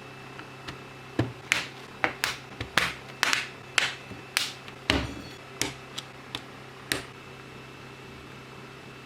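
Keys of a Digital Alliance Meca 8s mechanical keyboard with Outemu switches being pressed: about fifteen sharp clacks at an irregular pace, two or three a second, stopping about seven seconds in.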